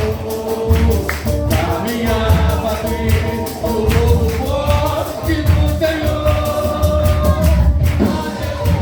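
A church vocal group singing a gospel song, several voices together, over a steady beat of tambourine shakes and a pulsing bass.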